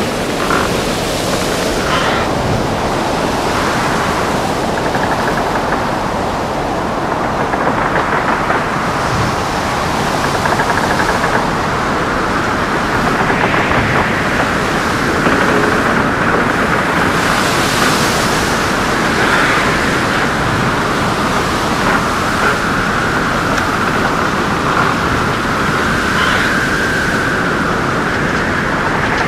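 Ship in a storm at sea: a steady, loud rush of wind and heavy waves, with a higher whistling note that wavers up and down and grows stronger through the second half.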